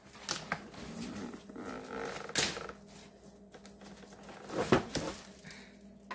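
Cardboard appliance box being opened by hand: flaps pulled up and handled, with a few scrapes and knocks, the loudest a little under five seconds in.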